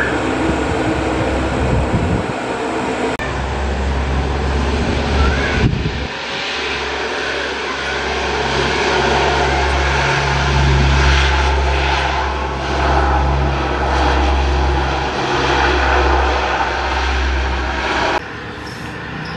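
The four Allison T56 turboprop engines of a Lockheed C-130 Hercules run at low power as it taxis, giving a steady low propeller drone. The sound changes abruptly twice in the first six seconds, and near the end it cuts to a much quieter background.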